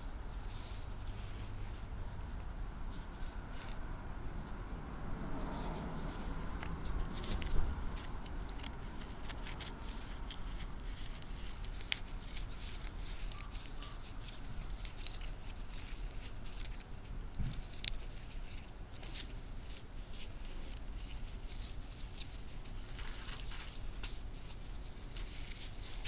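Nylon webbing rustling and sliding through the fingers as a clove hitch is tied onto a steel ring, with scattered light clicks and a few louder taps.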